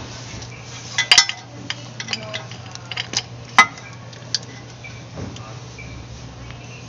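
The metal chain of a chain-type oil filter wrench clinking and rattling against the oil filter canister as the wrench is set round the filter and tightened. A handful of sharp clinks, the loudest about a second in and again past the middle, over a steady low hum.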